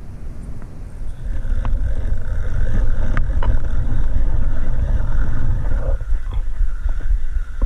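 Wind buffeting an outdoor camera microphone: a loud, rough low rumble that builds about a second in, with a few light clicks over it.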